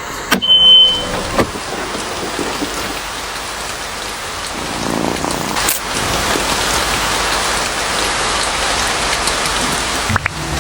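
Steady rain falling, an even hiss of drops on a surface, with a few sharp knocks in the first second and a half.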